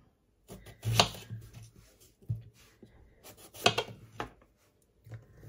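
Kitchen knife slicing through an eggplant and knocking on a plastic cutting board: two sharp chops, one about a second in and one past the middle, with a few fainter taps between.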